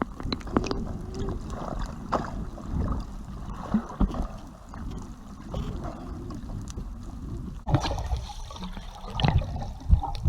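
Water sloshing and gurgling around a boat, with scattered knocks and bumps.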